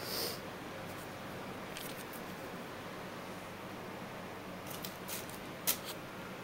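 Quiet room with a steady low hum, broken by a short rustle at the start and a few light clicks and brief rustles about two seconds in and again near the end.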